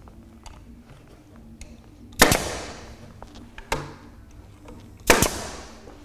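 Pneumatic nail gun firing twice, about three seconds apart, fastening rubber U-Boat isolation mounts to wooden floor joists. Each shot is a sharp crack followed by a short hiss of exhaust air, with a lighter click between the two.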